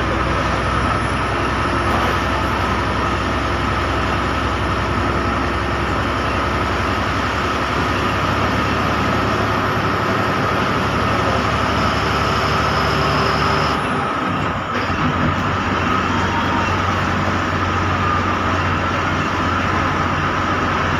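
Inside a bus driving on a rain-wet road: steady engine running and tyre hiss. The engine note shifts about two-thirds of the way through.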